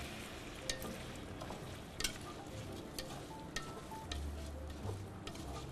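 Rice being stirred with a wooden spoon in a pot of garlic frying in oil, giving a faint sizzle and scrape, with a few sharp clicks spread through it.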